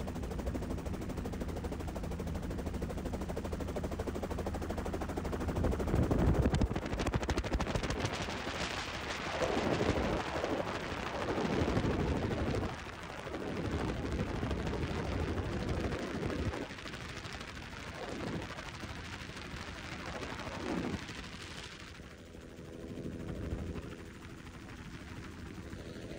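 Helicopter in flight with a rapid rotor chop and heavy wind rushing over the microphone of a phone held out of the window. The wind noise swells loudly about six seconds in, surges up and down, and dies back near the end, leaving the steady drone of engine and rotor.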